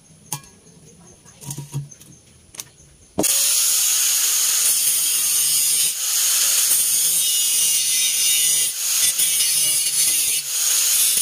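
A few light clicks, then about three seconds in a Makita angle grinder starts up abruptly, already at full speed, grinding the steel shell of a fire extinguisher. It is a loud, steady, hissing grind that dips briefly a few times as the disc is pressed against the metal.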